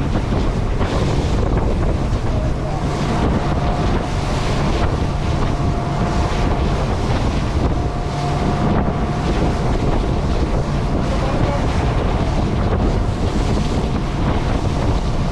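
Heavy wind buffeting the microphone over the steady drone of a Buster Magnum aluminium motorboat's outboard engine, with waves washing against the boat.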